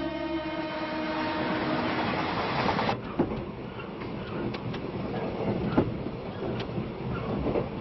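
Train running along the rails, heard from inside the carriage: a steady rumble with the wheels clicking now and then over rail joints. Music fades out at the very start.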